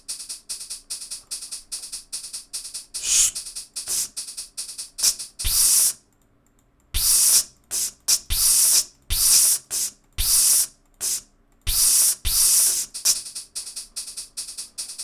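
Playback of a dubstep beat in progress: a fast, even shaker pattern made from a recorded voice, about four hits a second, stops briefly about six seconds in and comes back with louder noisy hits and low thumps under some of them.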